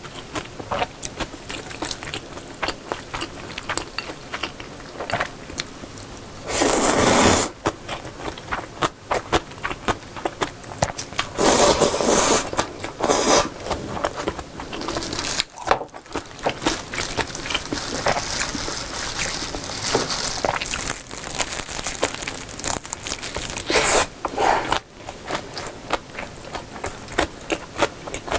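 Close-miked eating of thin wheat noodles in broth (janchi guksu): loud slurps of noodles and broth about seven seconds in, around twelve seconds and again near twenty-four seconds, with wet chewing and mouth clicks in between.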